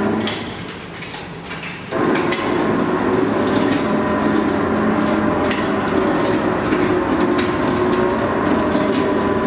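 Workshop machinery running with a steady hum and a few scattered metallic knocks. It turns quieter briefly at the start and comes back abruptly about two seconds in.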